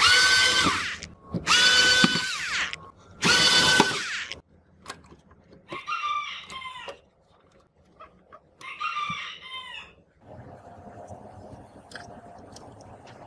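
Cordless electric screwdriver whining in three short runs, each about a second long, backing out the screws that hold the power transformer board in the cassette recorder's plastic case. Two quieter calls of an animal in the background follow a few seconds later.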